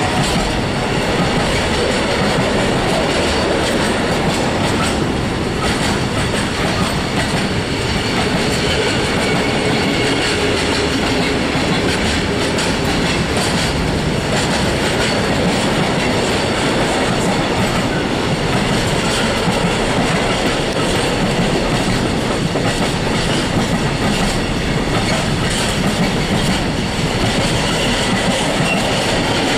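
Freight train of container flat wagons, loaded with shipping containers and tank containers, rolling past at close range: a steady, loud rumble of steel wheels on the rails that holds without a break.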